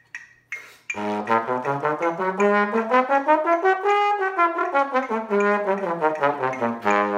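Low brass instrument, trombone-like in range, playing a run of short notes that climbs for about three seconds and then steps back down, like a scale up and back. It starts about a second in.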